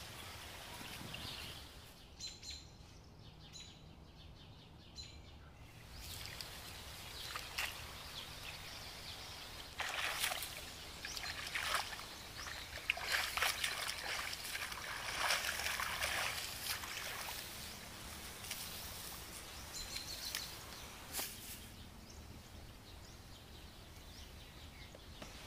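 Hands sloshing and splashing in shallow muddy ditch water while feeling for catfish, in irregular bursts that are busiest through the middle. A bird calls faintly now and then.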